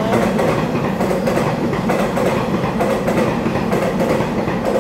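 Taiwan Railway EMU3000 electric multiple unit passing along the track, a steady rumble with the clatter of its wheels over the rails.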